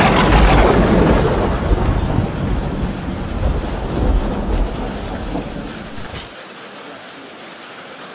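A sudden thunderclap right at the start, then a long low rumble of thunder that slowly fades and cuts off suddenly about six seconds in, over the steady hiss of heavy rain.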